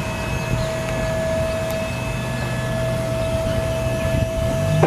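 Palfleet truck lift gate's hydraulic pump motor running with a steady whine over a low hum, cutting off at the very end.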